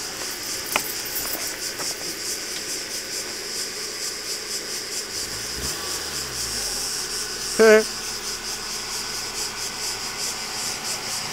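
Steady, high, fast-pulsing buzzing chorus of insects. A brief wavering call cuts through once, about seven and a half seconds in.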